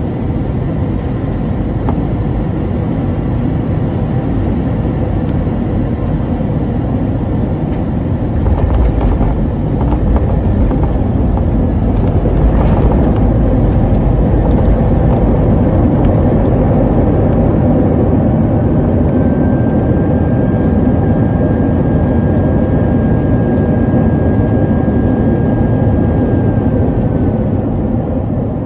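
Airbus A321-231 cabin noise on landing: a loud, steady rumble of jet engines and airflow that gets heavier about eight seconds in. A thin, steady whine joins for several seconds in the second half.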